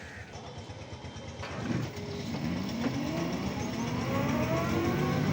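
A motor vehicle's engine accelerating, its pitch rising steadily and growing louder from about two seconds in.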